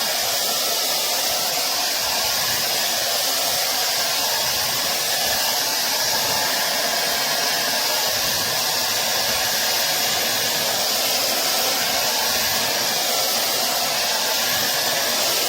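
TYMO ionic hair dryer running steadily, an even hiss of fan and airflow that holds the same level throughout.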